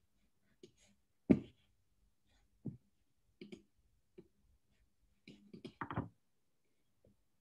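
Scattered clicks and knocks, the sharpest about a second in and a quick cluster of them near the end, picked up through a video-call microphone.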